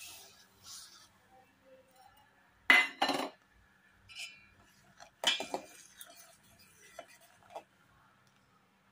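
Brown sugar poured into milk in a stainless steel pot with a soft hiss, then a steel ladle stirring and clinking against the pot, the loudest clinks about three seconds in and again a little past five seconds.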